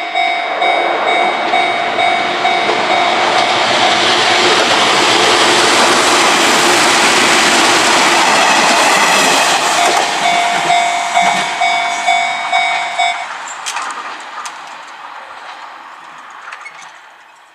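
Japanese level crossing alarm ringing in a steady, quick pulse while a train passes over the crossing, wheels and running noise swelling to a loud rush and then fading. The crossing bell stops about thirteen seconds in and the train sound dies away.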